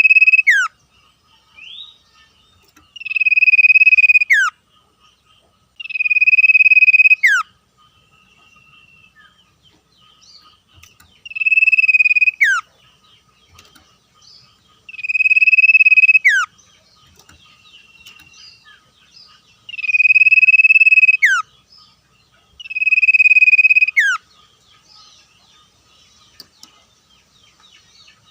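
Common iora (sirtu cipoh) singing its long whistled call seven times. Each call is a held, steady note about a second and a half long that ends in a quick falling slur, with pauses of a few seconds between calls. Faint chirps and a thin steady background trill run underneath.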